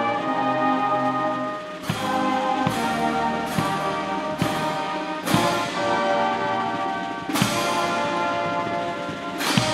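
Military band playing a slow piece of held brass chords, with drum strikes falling at a slow, even pace about once a second.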